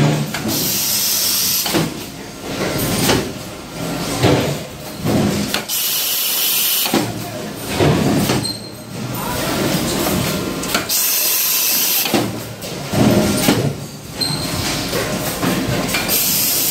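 Stainless steel wire rope melting and cutting machine running its automatic cycle: a hiss comes about every five seconds, four times, with mechanical clatter between.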